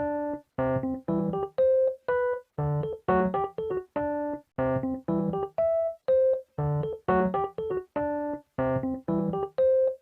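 Background piano music: a bouncy piece of short, clipped notes, low bass notes alternating with chords in an even oom-pah rhythm, starting suddenly.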